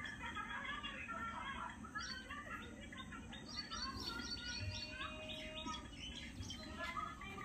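Small birds chirping and twittering busily, many short overlapping calls, over faint low background noise.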